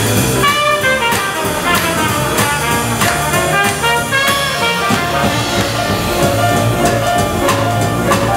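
Small swing jazz band playing live, with a trumpet leading the melody over piano, bass and a drum kit keeping time with regular cymbal strokes.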